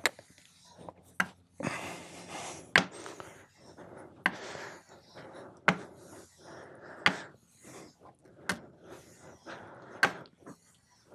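A Luban No 4 smoothing-plane iron being stropped flat on its back along a green-charged strop, to finish the freshly sharpened edge. The strokes make a soft rubbing sound, with a sharp click about every one and a half seconds.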